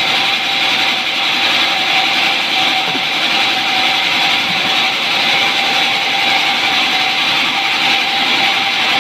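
Large vertical band sawmill running steadily, a constant whine over a loud hiss as its blade works through timber.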